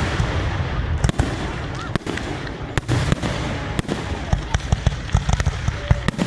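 Aerial fireworks going off in a dense, continuous run: deep booms overlapping with many sharp cracks and crackling reports.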